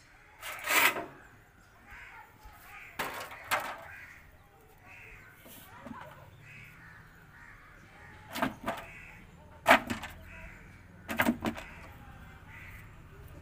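Sharp knocks and clatters, one at a time and in quick pairs, of a sheet-metal badi-making box being set down on and moved over metal drying trays, with crows cawing again and again throughout.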